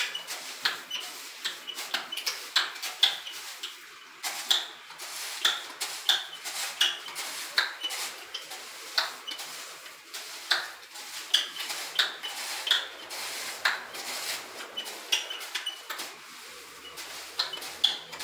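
Steel shovel scraping and clinking against a concrete slab while spreading damp sand-cement mortar. Sharp scrapes and clinks with a slight metallic ring come irregularly, about one or two a second.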